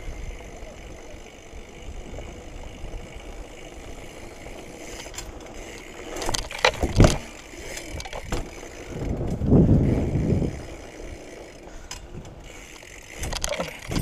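BMX bike rolling over a flagstone path: a steady low rumble from the tyres and frame, with a few sharp knocks about six to seven seconds in and again near the end, and a louder rushing stretch around ten seconds in.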